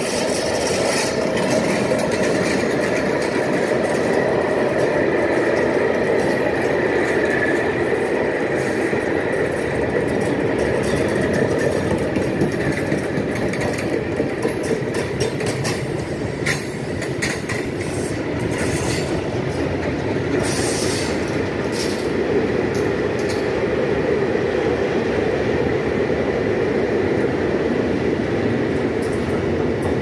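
Freight train of container, flat and tank wagons rolling steadily past at close range: wheels rumbling and clattering over the rail joints, with a few sharper clacks about halfway through.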